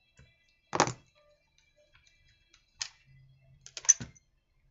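Hand tools and plastic parts knocking and clicking on a wooden workbench: a sharp knock about a second in, a single click near three seconds, and a quick clatter of clicks, the loudest, near four seconds as the chainsaw's plastic starter cover is pulled free.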